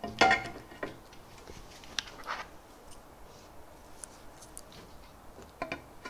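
Aluminium V-slot extrusion being handled on a workbench: a knock of metal just after the start, a scrape about two seconds in, then small metal clicks near the end as a wheeled gantry plate is fitted onto the extrusion.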